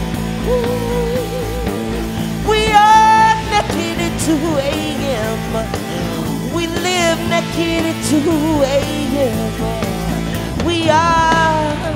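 A live band playing under a singer's wordless vocal runs, with bending phrases and a couple of long held notes with vibrato.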